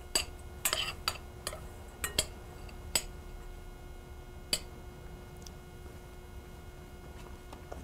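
A spoon clinking and tapping against a glass mixing bowl while salt is stirred into chopped meat filling: a run of light, uneven clicks over the first four or five seconds, then it stops.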